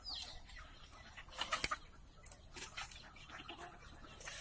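Free-range village chickens calling faintly: a short falling call at the start, then clusters of brief clucks.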